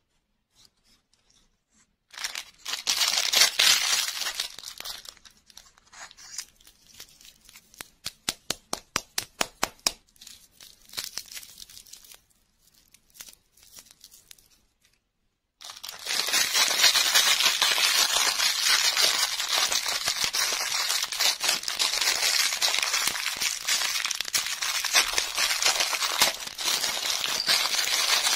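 Plastic wrappers and a clear plastic bag crinkling and tearing as they are handled and opened by hand. First comes a stretch of rustling, then a run of quick, evenly spaced crackles, a short pause, and dense continuous crinkling through the last twelve seconds or so.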